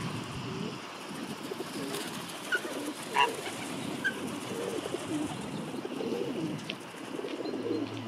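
Feral pigeons cooing over and over, with a few short high chirps from small birds.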